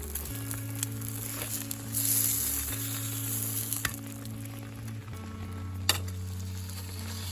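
Food sizzling and frying in a pan, a steady hiss that swells louder about two seconds in, with a few sharp clicks. Soft background music with held low notes underneath.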